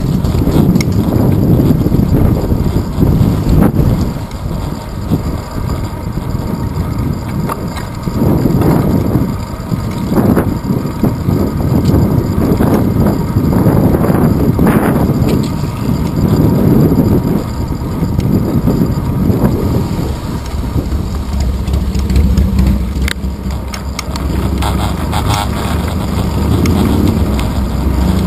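Wind buffeting a handlebar-mounted GoPro's microphone on a moving bicycle, with road noise and rattles, the rushing rising and falling every second or two. A steady low hum joins near the end.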